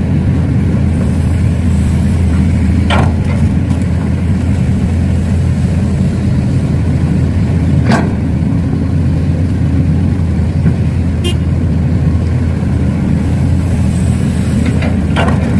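Steady low engine rumble of heavy equipment running, with a few short sharp sounds at intervals.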